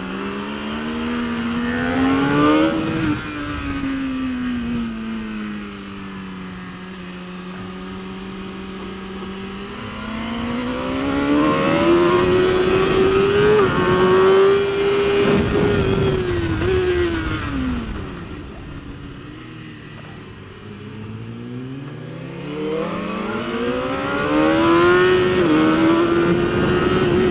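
BMW S1000RR superbike's inline-four engine heard from onboard at track pace: it revs up hard, winds down as the bike slows for corners, then pulls up again twice, rising and falling in pitch through the gears.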